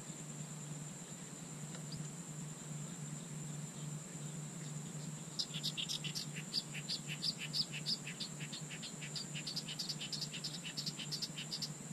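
Faint chorus of small wetland animals calling in quick, evenly spaced high chirps, about four a second, starting about five seconds in. Under it runs a steady high-pitched whine and a low hum.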